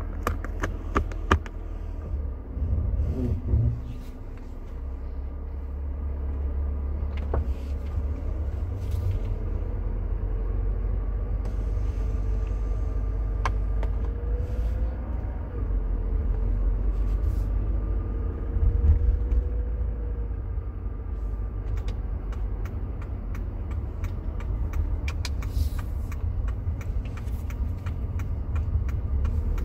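Mercedes-Benz W124 220CE coupe on the move: the 2.2-litre four-cylinder engine running under a steady low road rumble, its pitch rising and easing off a few times about midway. A few sharp clicks come near the start, with odd single ones later.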